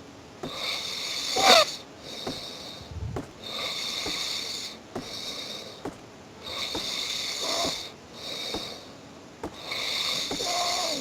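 Snoring: a longer noisy breath followed by a shorter one, repeating about every three seconds, with a brief rising whistle on the loudest breath about one and a half seconds in.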